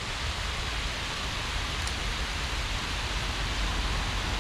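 Steady rush of water pouring over a concrete spillway weir.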